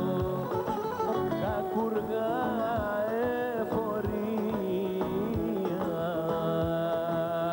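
A man singing a slow song live into a microphone, accompanied by acoustic guitar with a steady beat.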